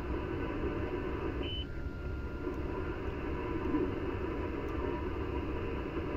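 HF receiver audio: steady hiss and static from the radio as it is tuned across the 20-metre band by taps on the panadapter screen. A short high beep comes about one and a half seconds in, followed by a faint steady tone for about a second and a half.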